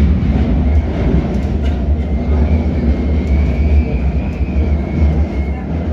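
Interior of a Metropolitan line S8 Stock train running between stations: a heavy low rumble with a thin, high whistle that wavers slightly up and down in pitch.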